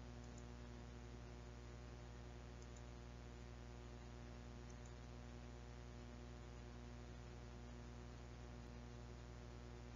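Faint, steady electrical hum with a low buzz, like mains hum in the background of a recording, and a few tiny ticks in the first few seconds.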